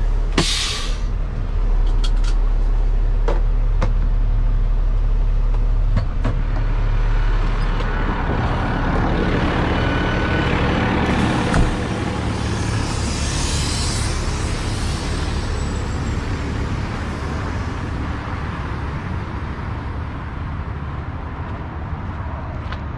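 A heavy-duty tow truck's air parking brake being set, a short sharp hiss of air about half a second in, then the truck's diesel engine idling steadily. A few knocks come in the first several seconds, and the engine grows gradually fainter toward the end.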